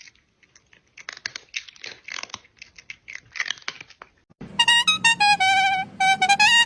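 Irregular crunching clicks for about four seconds, then a bright melody with wavering notes, like a ringtone tune, starts and plays in short phrases.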